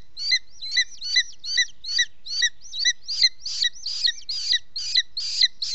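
Booted eagle at the nest calling in a steady series of short, high, piping notes, about two and a half a second, growing louder and harsher over the second half.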